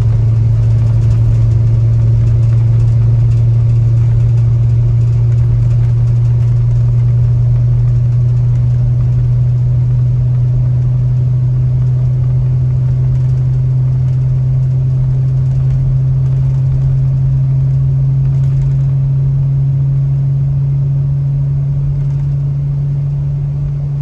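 Ford Excursion's V10 Triton engine and exhaust droning inside the cabin while driving: one loud, steady low hum that creeps slightly higher in pitch partway through.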